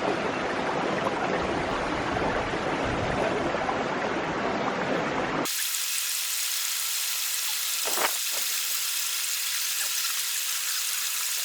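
Rushing stream water, a steady hiss with no pauses. About five and a half seconds in, the sound cuts abruptly to a thinner, brighter hiss with faint steady tones in it.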